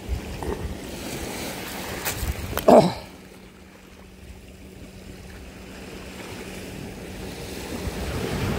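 Sea waves on the shore and wind on the microphone, with a faint steady low hum throughout. One short, loud falling swish comes near three seconds in, then the wind noise drops.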